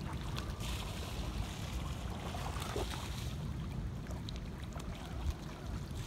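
Wind rumbling on the microphone at the water's edge, with small waves lapping against the shore. A hissing gust swells for the first half.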